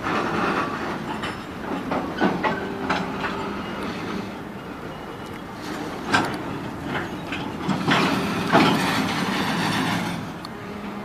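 Freight train of loaded bulkhead flatcars rolling slowly past, wheels clacking over the rail joints. Irregular sharp knocks and clanks sound over a steady rumble, loudest about six and eight and a half seconds in.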